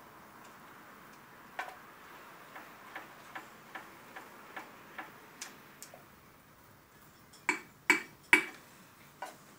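Wooden spoon knocking lightly against the inside of a glass blender jug while stirring a thick dip, about two or three knocks a second, then a few louder, sharper knocks near the end.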